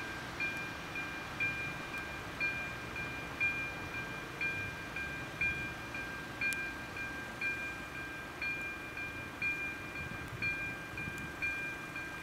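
Level crossing's electronic warning bell ringing, a short ding repeating about twice a second over a steady tone: the crossing is closed for an approaching train.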